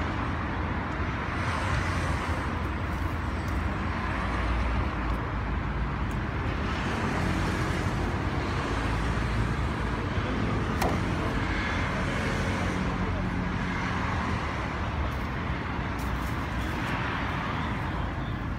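Steady road traffic noise with indistinct voices mixed in.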